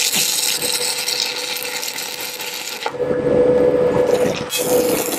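Stick welding arc frying and crackling. About three seconds in the hiss drops to a duller, lower sound with a steady hum, and the sharp crackle comes back near the end.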